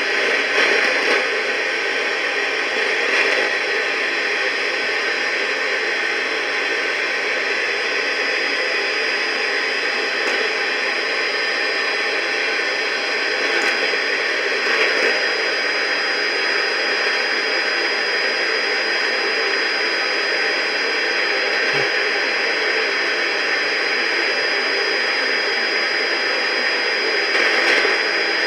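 Steady radio static: an even hiss with a thin high whistle held through it, swelling slightly a few times.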